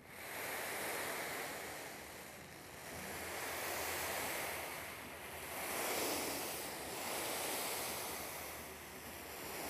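Two bristle hand brushes swept over a fabric cushion as a foley effect, making a rushing hiss that swells and fades every couple of seconds.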